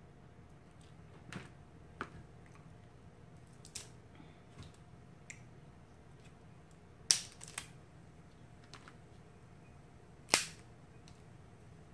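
Crab leg shells cracking as they are snapped apart by hand: a series of sharp cracks, the loudest two about seven and ten seconds in.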